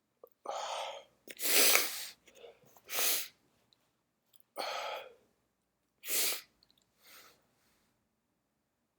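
A person breathing hard between induced sneezes: five short, noisy breaths about a second and a half apart, the second the loudest, with a fainter one near the end.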